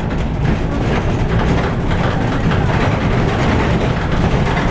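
A moving bus heard from inside, a steady low engine drone under road and cabin noise.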